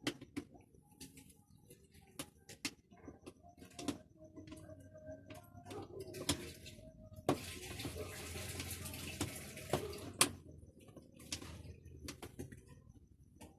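Water running for about three seconds, starting about seven seconds in and cutting off sharply, with scattered light knocks and clatter before and after.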